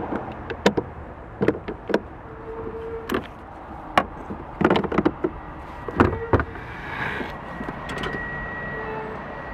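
Clicks and knocks from handling a car's doors and jump-start gear, with a few short steady beeps and a thin high electronic tone from about seven seconds in. No engine is running yet.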